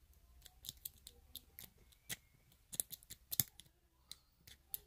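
Irregular light metallic clicks and ticks of a key being worked by hand in an old four-pin Medeco cam lock cylinder that will not yet turn, its sidebar only partly engaging. The loudest clicks come about two seconds in and again near three and a half seconds.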